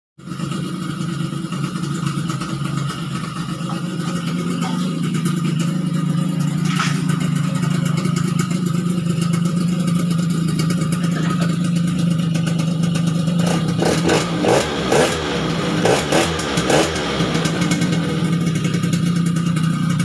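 Yamaha BWS 100 two-stroke scooter engine running at idle through an aftermarket power pipe (expansion-chamber exhaust), with several quick throttle blips past the middle.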